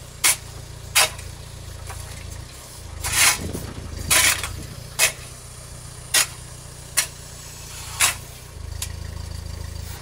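Small four-wheel-drive tractor's engine running steadily, driving its rear-mounted backhoe as it digs soil and swings a loaded bucket over to a trailer. Short, sharp noises about once a second stand out above the engine.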